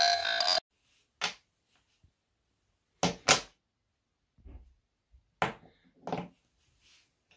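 Electronic music that cuts off within the first second, then wooden Quadrilla marble-run blocks being set down on a tabletop and stacked: several separate sharp wooden knocks, two in quick succession about three seconds in.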